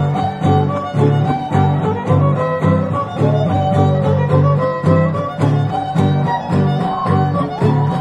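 Violin playing a lively dance tune over a steady strummed-guitar rhythm: music for a Huastec Xantolo comparsa dance.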